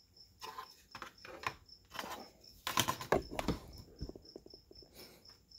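Handling of a styrene plastic model truck cab on a cutting mat: light clicks, taps and scrapes, busiest about three seconds in. A cricket chirps steadily in the background, about four to five chirps a second.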